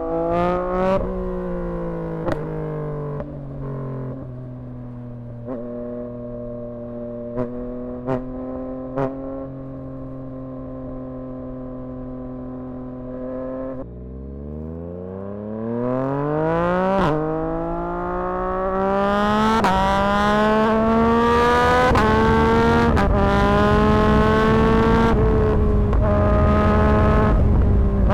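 2024 Yamaha MT-09's 890 cc crossplane three-cylinder engine through a Dominator HP6 aftermarket exhaust. In the first half the engine note holds steady with several sharp pops and crackles from the exhaust. About halfway through it is opened up hard: the pitch rises steeply, dips once at a gear change, then keeps climbing at high revs, louder and under full load.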